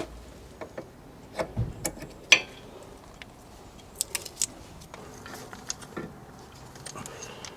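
Scattered metallic clinks and knocks of hand tools and brake parts being handled while refitting a car's rear brake carrier and caliper, the sharpest clink about two seconds in.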